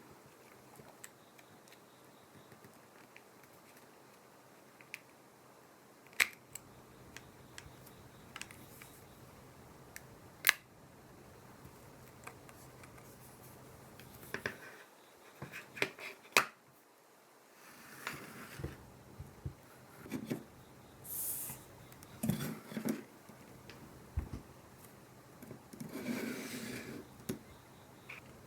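Small tools and parts clicking and tapping on an opened iPhone 7, a few sharp clicks spaced seconds apart, then a run of short scraping and rubbing noises in the second half.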